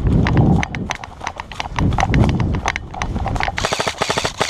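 Running footsteps thudding through woodland undergrowth, with scattered sharp cracks of airsoft guns firing. Near the end a rapid, continuous burst of automatic airsoft fire starts up.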